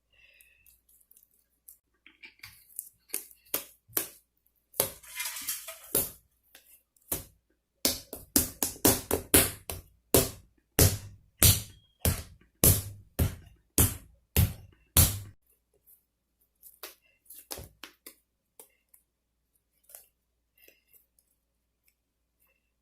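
Sticky slime squelching and popping as hands knead and pull it: scattered clicks at first, then a run of loud wet pops about two a second through the middle, thinning to a few faint clicks near the end.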